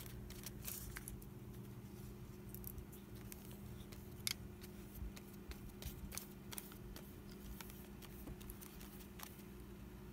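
Faint clicks, taps and small clinks of a paintbrush and paper being handled while Mod Podge is brushed over a napkin cut-out on a journal page, the sharpest click about four seconds in. Under them an electric fan hums steadily.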